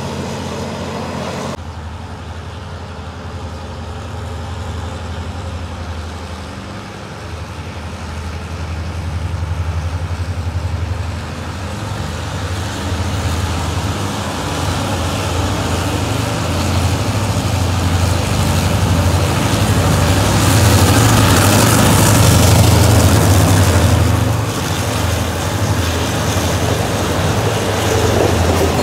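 Diesel locomotive hauling a passenger train approaches and passes close by. Its engine runs with a steady low hum, and the clatter of wheels on rail grows louder, loudest about 20 to 24 seconds in.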